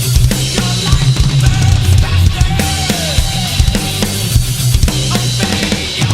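Drum kit played along with a heavy metal song, with rapid kick drum and snare hits over the recording.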